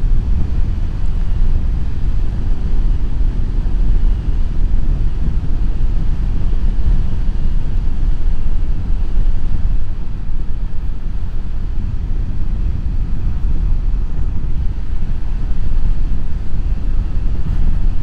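Steady, loud wind rush and riding noise from a motorcycle at about 70 km/h, picked up by a lavalier mic with the helmet visor closed: a low rumble with no let-up.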